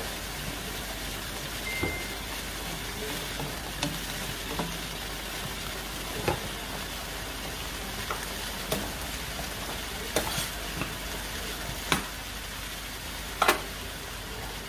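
Adobo frying in a nonstick wok, with a steady sizzle. Several sharp clicks and knocks of a utensil against the pan or cookware are scattered through it.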